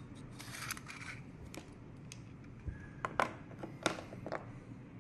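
Metal clicks and a short scrape from handling a bottom-loading staple gun while it is loaded: the inner core is slid back into the magazine and the body latched shut. The loudest sharp clicks come about three and four seconds in.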